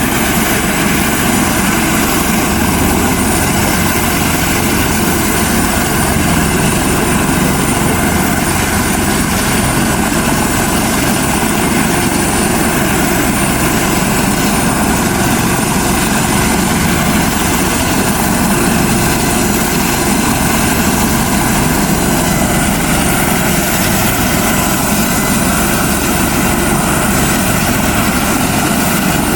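Helicopter engine and rotor running steadily, a loud, unchanging drone with steady tones.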